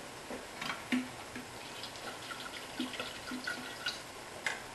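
Water poured from a plastic bottle into a Thermomix bowl through the lid opening: a faint, steady trickle with scattered small ticks.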